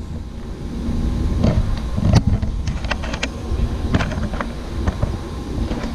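Steady low outdoor rumble with several short, sharp clicks and knocks scattered through.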